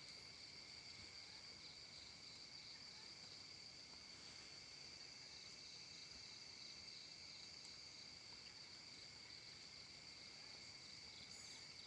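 Near silence with a faint, steady insect chorus: a continuous high-pitched trill at two pitches. There is a brief faint higher chirping near the end.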